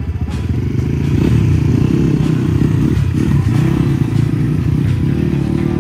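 Several motorcycles, street bikes and dirt bikes, running close together and pulling away, their engines building up and holding at a steady loud pitch.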